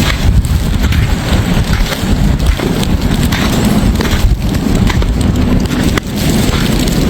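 Strong wind buffeting the microphone during a snowstorm: a loud, rough, gusting rumble.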